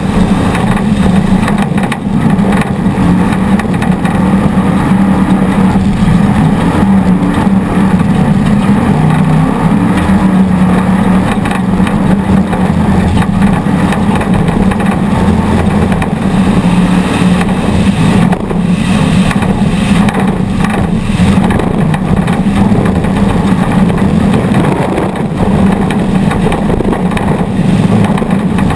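Off-road race vehicle's engine running hard and steadily under load, with rough-terrain and wind noise around an onboard camera. A few sharp knocks come through about two-thirds of the way in.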